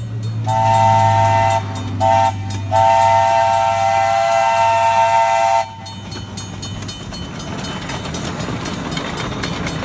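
Chime whistle of a small steam locomotive, sounding three pitches together, blown long, short, then long as the train approaches the grade crossing. After the whistle stops, the approaching train's running noise comes in, with a fast light clatter.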